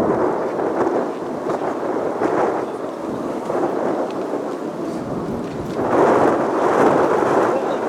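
Jet engine roar from a military jet flying a touch-and-go circuit, a rough, uneven rumble that eases off and then swells again about six seconds in.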